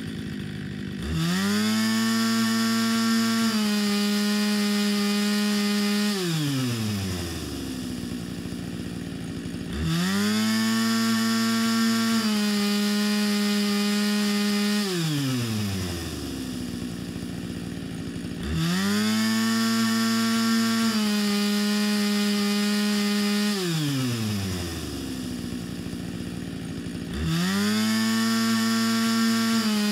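Husqvarna two-stroke chainsaw revved from idle to full throttle and held there for about five seconds, its pitch stepping slightly lower partway through, then let fall back to idle. The cycle comes round about every eight to nine seconds, with four rev-ups in all.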